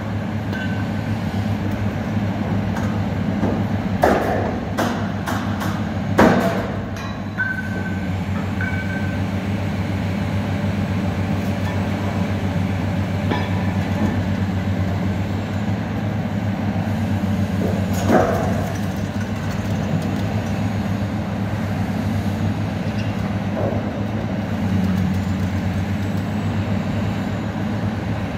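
Hitachi EX1200 high-reach demolition excavator running steadily, its diesel engine and hydraulics making a constant low rumble. A few sharp knocks and crunches come from its attachment working the building, the loudest about six seconds in and another about eighteen seconds in.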